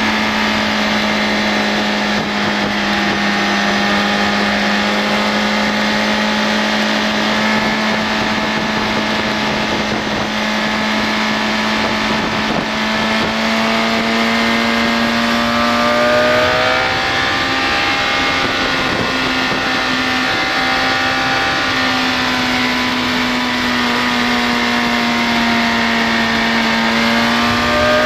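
BMW K1200S's inline-four engine running hard under way, heard from on board with a rush of wind noise. The engine note holds steady at first, climbs about halfway through, then dips and rises a few times with the throttle.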